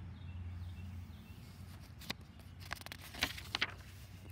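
A page of a picture book being turned: a crisp paper rustle with a few sharp clicks, about two to three and a half seconds in.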